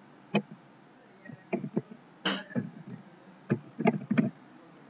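Computer keyboard typing: about nine short, irregular key clicks with gaps between them as a word is typed.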